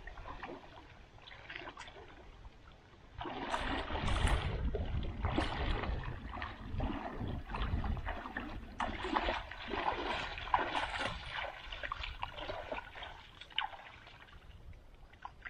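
Legs wading through thigh-deep creek water, sloshing and splashing with each stride. The sound quietens near the end as the wader steps out onto the bank.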